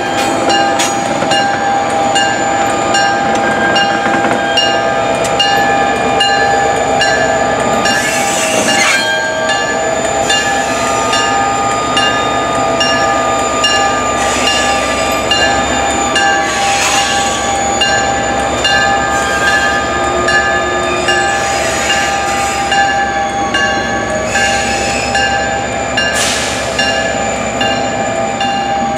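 EMD GP40PH-2 diesel locomotive moving past with its train, its engine running with a steady whine. A bell rings over and over throughout, and a few brief rushing noises come and go.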